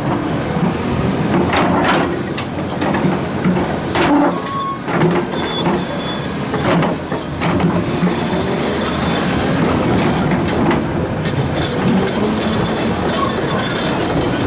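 Heavy hydraulic excavators working large rocks: diesel engines running steadily under repeated clanks and knocks of stone against steel, with a few brief high metallic squeaks.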